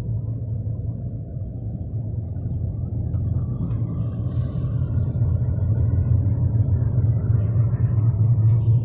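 Steady low drone of a car's engine and road noise heard from inside the cabin, growing louder over the last few seconds.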